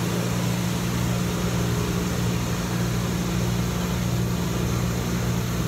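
Steady machinery noise from running rooftop air-conditioning equipment: a low, even hum under a constant rushing of air, with no change throughout.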